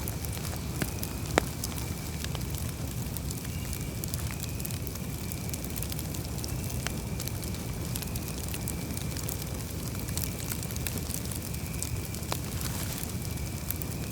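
Campfire burning: wood crackling with scattered sharp pops over a low, steady rumble of flame. The loudest pop comes about a second and a half in.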